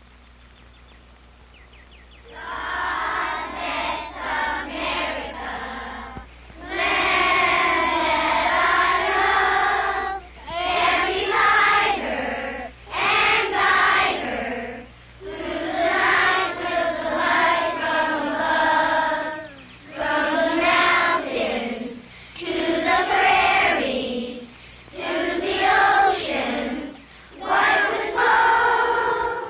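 A children's choir singing in phrases, with short pauses between them. The singing comes in about two seconds in, after a faint low hum.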